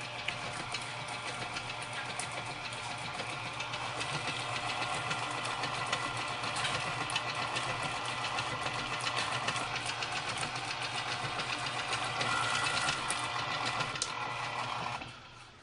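Breville stand mixer's motor running steadily, its flat beater turning through batter in the stainless steel bowl with a dense whir and fast fine clicking. The motor stops suddenly near the end.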